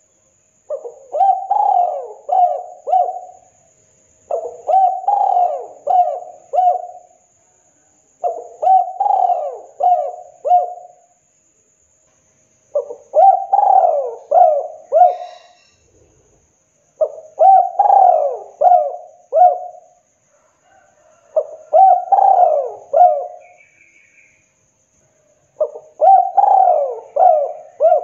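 Spotted dove cooing: seven phrases, each a run of about four coos, repeated about every four seconds with short pauses between.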